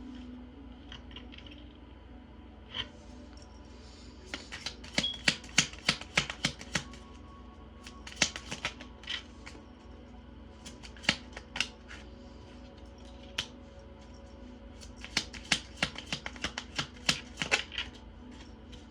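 A tarot deck being shuffled: four runs of quick, sharp card snaps, over soft background music.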